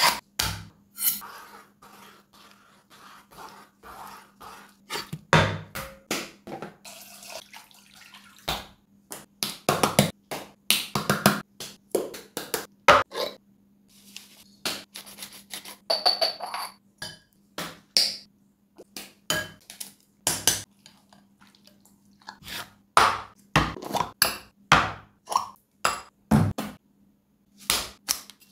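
Close-miked kitchen prep sounds as a long string of separate clicks, scrapes, rustles and clinks: a knife drawn through a pull-through sharpener, seasoning shaken from a packet into a glass bowl, and scissors at a foil spice packet near the end.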